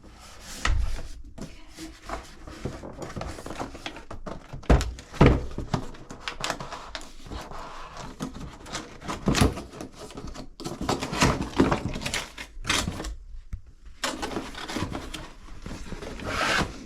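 A new LED vanity light fixture being unpacked from its box: a string of irregular knocks and thunks with rustling of cardboard and packing.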